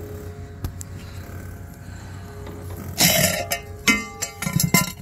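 Metal riser roof flashing scraping and rattling against asphalt shingles as it is pulled out from under them and lifted, starting about three seconds in, with a few sharp handling knocks near the end.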